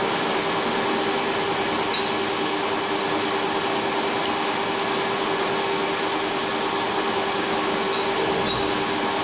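1K62 screw-cutting lathe running steadily, a constant mechanical hum with a steady tone in it, and a couple of faint ticks.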